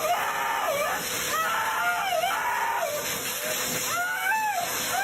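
An animal's repeated high-pitched calls, each arching up and down in pitch, about one a second, over a steady hiss.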